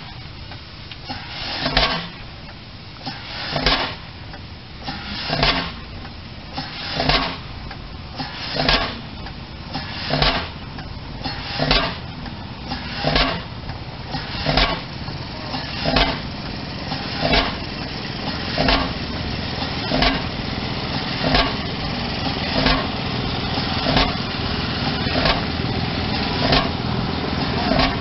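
A 50 HP Fairbanks Morse Y two-stroke semi-diesel stationary engine firing with slow, sharp exhaust bangs, one every two seconds at first, quickening to about one every 1.3 s as it comes up to speed. A steady low running sound grows louder underneath.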